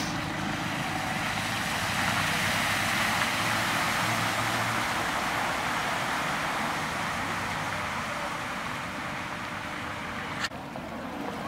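Cars driving along a flooded road, tyres hissing through the floodwater with low engine hum. The sound cuts off abruptly about a second before the end.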